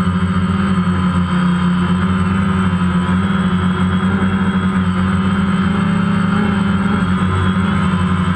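DJI Phantom quadcopter's electric motors and propellers, heard from the camera mounted on the drone in flight: a loud, steady buzzing hum.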